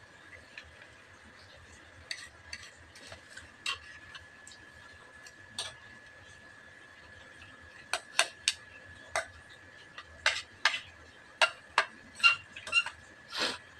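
Spoons clinking and scraping against plates during a meal: scattered sharp clicks at first, coming thicker and louder in the second half.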